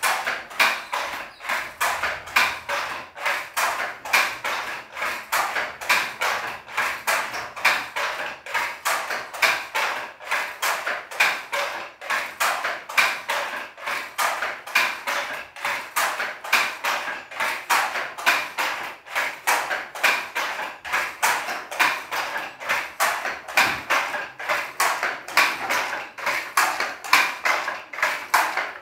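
Wooden handloom being worked, clacking steadily at about two to three knocks a second.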